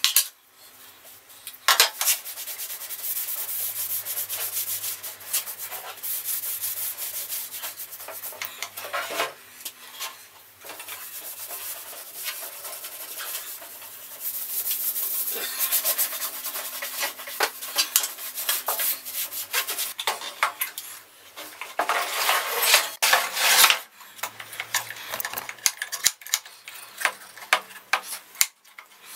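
A cloth rubbing and buffing paste wax onto a table saw's metal top and a melamine-faced fence: scrubbing strokes that come and go, with short pauses.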